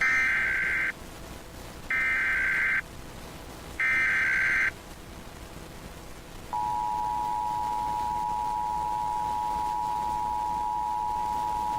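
Emergency Alert System SAME header: three short bursts of screeching digital data tones, each about a second long and a second apart, opening a Required Monthly Test. About two seconds after the last burst, the steady two-tone EAS attention signal begins and keeps going.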